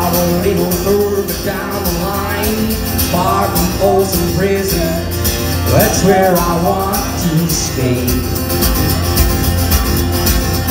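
Solo acoustic guitar played in a steady country rhythm through an instrumental break between sung verses.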